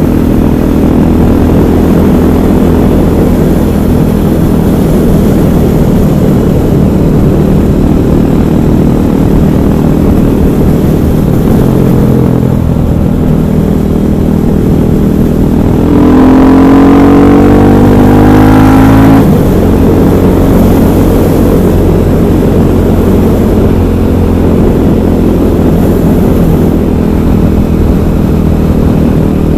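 KTM 500 EXC's single-cylinder engine running steadily on the road; about halfway through it revs up hard for about three seconds, rising in pitch, then the pitch drops and it settles back to a steady run.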